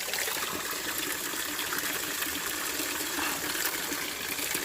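Water running steadily from a mountain spring and stream, a continuous gushing rush.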